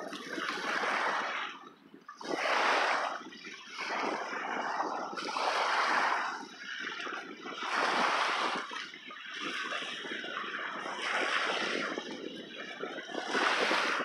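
Small lake waves washing onto a gravel shore, the wash swelling and fading every two to three seconds.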